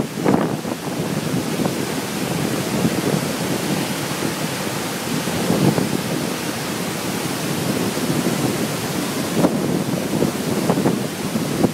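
Ithaca Falls, swollen with storm runoff, pouring a heavy flood flow into its plunge pool. The falling water makes a loud, steady rushing noise with uneven swells.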